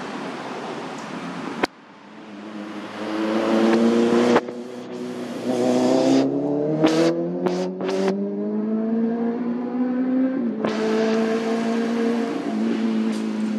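A motor vehicle engine accelerating, its pitch rising slowly over several seconds and then holding steady. A sharp click comes a couple of seconds in.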